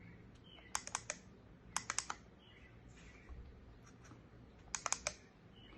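Small push buttons on a digital water flow meter's front panel clicking as they are pressed quickly, in three short groups of three or four clicks each.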